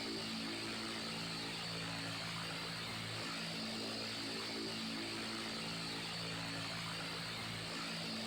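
Electric fan running steadily: an even rush of moving air with a low motor hum whose tones shift in a repeating cycle every four seconds or so.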